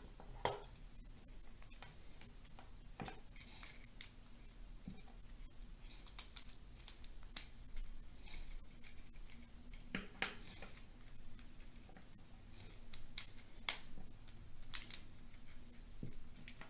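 Plastic Lego bricks clicking as they are handled, pulled apart and pressed together, in scattered sharp clicks with a cluster of louder ones toward the end.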